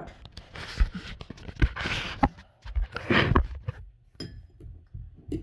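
A handheld phone being moved about and set in place: several sharp knocks and rubbing on the microphone, among short rushes of breathy noise.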